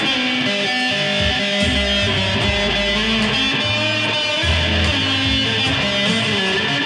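Electric guitar played through an amplifier, held notes and chords ringing continuously, with low bass notes changing underneath.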